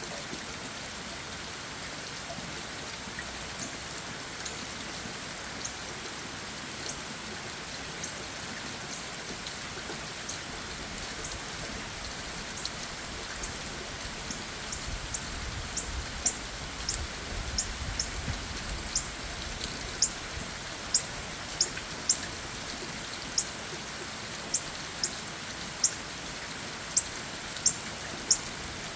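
Steady rain falling on leaves and ground, with individual drops tapping sharply; the taps become more frequent and louder about halfway through.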